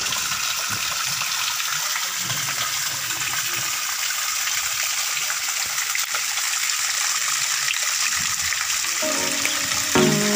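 Small waterfall splashing steadily over rock into a stream pool, an even rush of falling water. Music with held notes comes in near the end.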